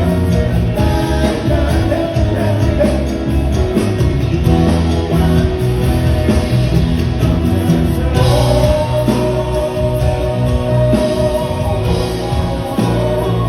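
Live band playing a Thai pop-rock song, loud and continuous, with a singer's voice over the instruments.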